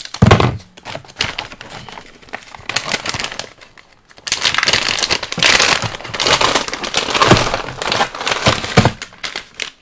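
Plastic kit parts bag crinkling and crackling as it is opened and the parts inside are handled, with a loud thump just after the start.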